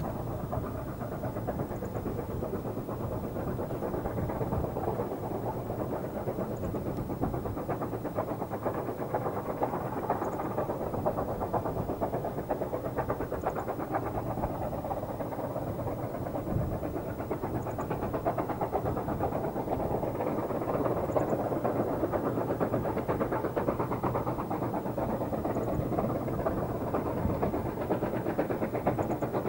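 Steam locomotive working, a steady rapid exhaust beat that grows a little louder in the second half as the train draws nearer.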